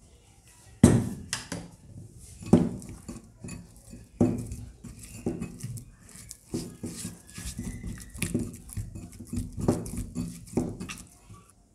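Talcum-powder slime dough kneaded by hand in a glass bowl: sticky squelching and smacking, with sharp knocks of the bowl against the table, loudest at about one, two and a half and four seconds in.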